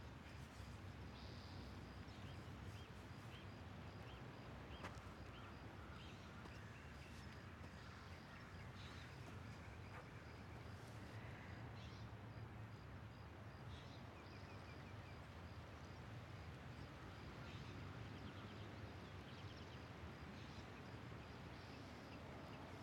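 Faint outdoor ambience: a steady low background hush with scattered short bird chirps and a brief trill.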